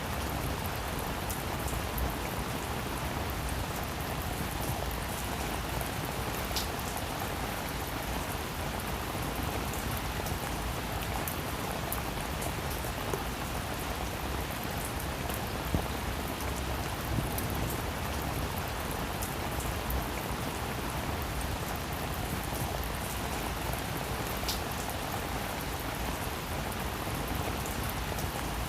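Heavy rain falling steadily, an even hiss of rain on surfaces with scattered individual drop impacts.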